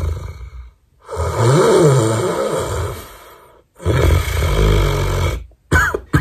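A man faking snores with his mouth closed, tongue held in the K position, drawing breath in through the nose: three long rough snores with short pauses between them, the middle one wavering up and down in pitch. Near the end comes a short, sharp sound.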